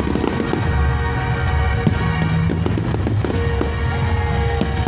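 Aerial fireworks bursting, with a string of sharp bangs and crackles over loud, steady music.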